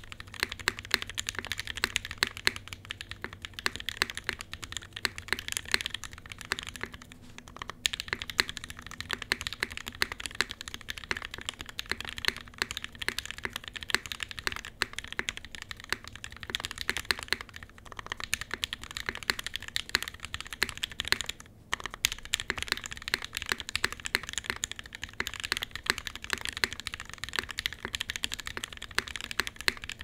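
Continuous fast typing on a top-mount Xiyeon custom mechanical keyboard with a full aluminium plate, Gateron Black Ink linear switches fitted with films and lubed, and GMK keycaps. The keystrokes come as a dense stream of sharp clacks, with a brief pause a little past two-thirds of the way through.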